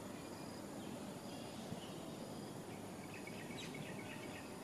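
Faint outdoor background noise, with a short run of faint high chirps about three seconds in.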